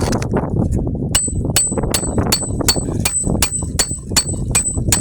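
Hammer striking a steel snake tool slid under a roof shingle, driving a roofing nail: about a dozen quick, evenly spaced metal-on-metal blows, each with a short bright ring, starting about a second in.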